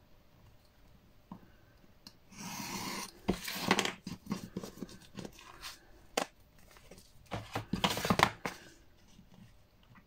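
Paper and card being handled: irregular rustling and sliding with small taps and clicks, starting about two seconds in, loudest near the start of the rustling and again near the end.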